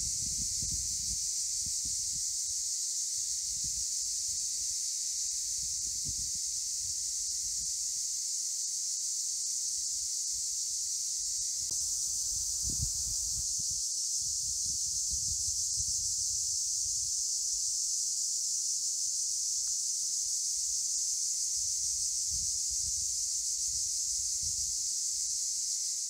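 Cicadas singing in chorus: a continuous, steady, high-pitched buzz that does not let up.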